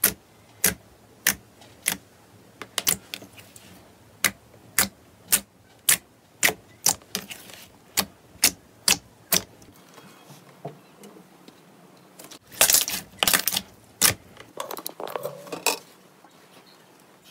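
Glossy clear slime pressed and poked by fingers, air pockets popping in sharp wet clicks about two a second. Near the end comes a louder burst of squishing and crackling.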